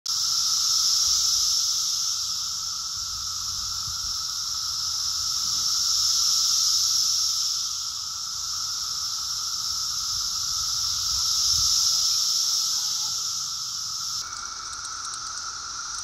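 Chorus of Brood X periodical cicadas (Magicicada): a steady, high-pitched massed drone that slowly swells and fades in loudness.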